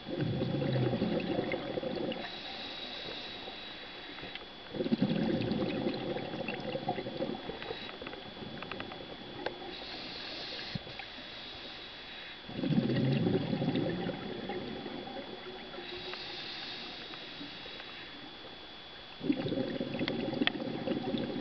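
Scuba diver breathing through a regulator underwater: a quieter hiss on each inhale, then a loud rush of exhaled bubbles lasting two to three seconds, four times, about every seven seconds. A faint steady high tone runs underneath.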